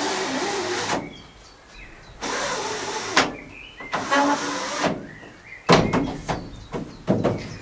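Newly fitted Dometic Midi Heki roof window being worked by hand: three slides of about a second each, one ending in a click, then several sharp plastic clicks near the end.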